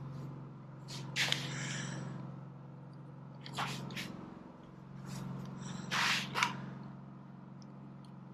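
Portable generator running steadily with a low, even hum. Three short hissing bursts sound over it, about a second, three and a half seconds and six seconds in.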